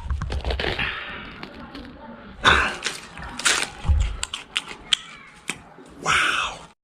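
A string of sharp knocks and cracks, with louder crashing hits about two and a half, three and a half and six seconds in and a deep thud near four seconds: impact and breakage sound effects.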